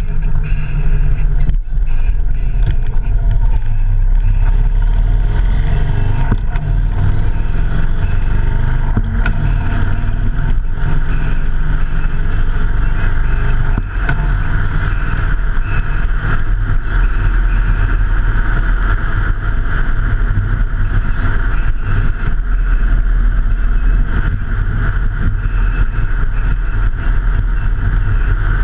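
Motorcycle engine running steadily at speed, under a constant rush of wind and road noise.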